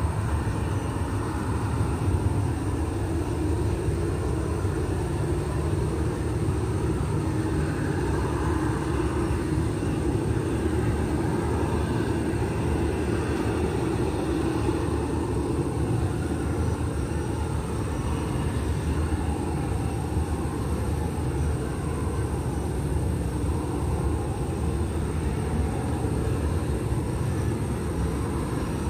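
Jet engines of a Batik Air airliner running at taxi power, a steady rumble with no change in level.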